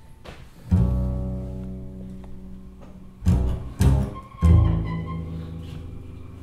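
Double basses in free improvisation. A low note is struck sharply about a second in and left to ring and fade, two short hard attacks follow around three and a half seconds, then another low note rings out.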